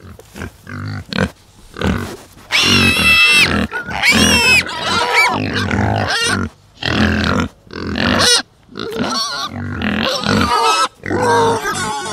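Pigs grunting in a quick, irregular series, broken by loud high-pitched squeals about three to four and a half seconds in and again around eight seconds.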